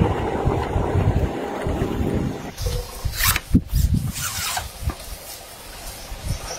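Close rubbing and rustling handling noise, with a few sharp clicks and scrapes about three to four and a half seconds in.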